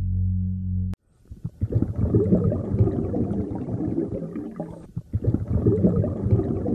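A held synthesizer music tone cuts off about a second in, followed by a dense, low, irregular bubbling rumble of underwater sound, the exhaled bubbles of a scuba diver's regulator, with a brief break near the middle.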